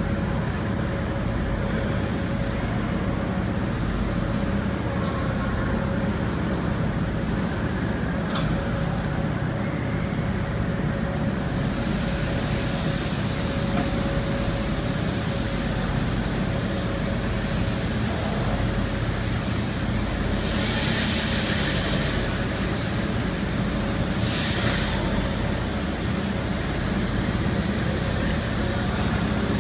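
PADE six-axis CNC chair-machining centre running with a steady low hum and a faint steady tone while its head repositions the clamps and suction pods. Three bursts of compressed-air hiss cut through, the longest lasting over a second about two-thirds of the way in.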